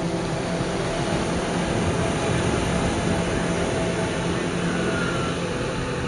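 Waves breaking and washing up the shore, with wind rumbling on the microphone and a steady low drone underneath.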